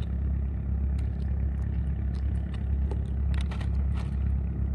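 A steady low engine drone, like an idling boat motor, with a few faint clicks from handling the fishing reel and tackle.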